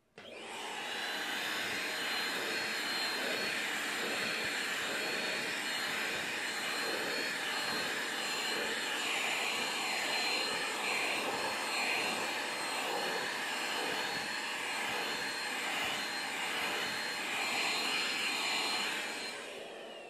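Vacuum cleaner running steadily with a high whine, its nozzle worked over a cat's fur. Near the end it is switched off and the whine falls as the motor winds down.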